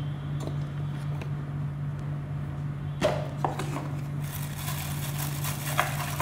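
Vegetables cooking in water in a pan on a gas stove, with a couple of knocks about three seconds in and then a busier fizzing, bubbling crackle, over a steady low hum.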